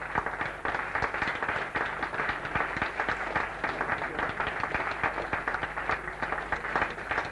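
Audience applauding, a dense, steady patter of many hands clapping over a low electrical hum.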